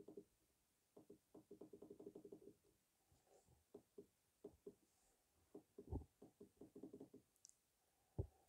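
Faint clicking of an HP laptop's touchpad: a quick run of several clicks a second about a second in, then scattered single clicks, with a louder one near the end.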